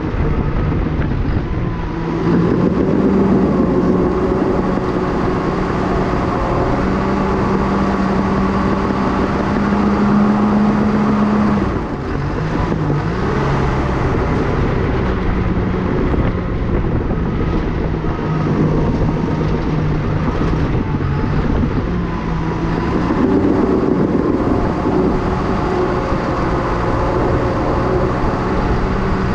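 A Cat D5K crawler dozer's diesel engine running steadily under load while the dozer pushes dirt. Its note steps up and down in pitch a few times.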